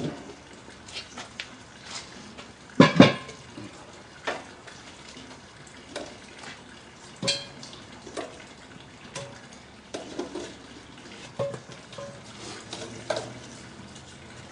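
A cast-iron Dutch oven and its lid being handled: a heavy double clank of metal on metal about three seconds in, then scattered lighter clinks and taps as coals are set on the lid.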